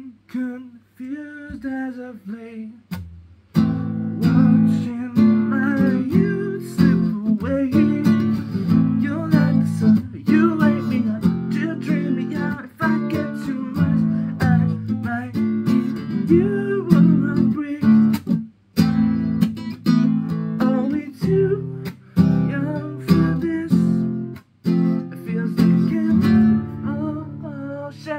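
Nylon-string classical acoustic guitar strummed in rhythmic chords. The first few seconds are sparse, and full, steady strumming comes in about three and a half seconds in.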